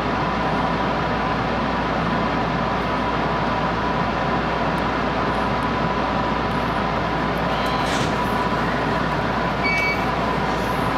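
An electric commuter train heard from inside its front cab, standing or just starting off: a steady hum of its on-board equipment with a constant tone running through it. A few brief, faint higher tones come near the end as it begins to move.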